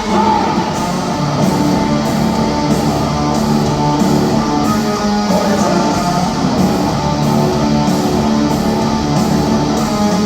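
Rock band playing live: heavy distorted electric guitars over drums, an instrumental passage with no singing.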